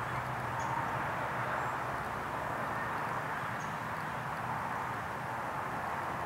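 Steady outdoor ambience: an even background hiss with a low hum underneath and a few faint, short high chirps.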